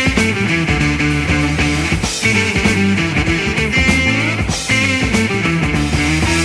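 Instrumental psychedelic rock passage: electric guitar playing over a steady bass line and drum kit, with no singing.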